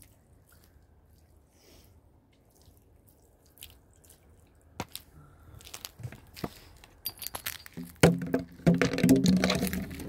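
Footsteps crunching on gravel and broken glass, coming up close to the microphone. A few scattered clicks at first, then dense, loud crunching over the last two seconds.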